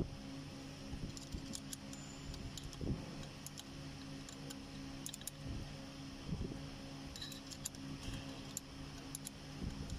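Scattered light metallic clicks and clinks of hand tools working at an AC compressor clutch plate, over a steady low hum.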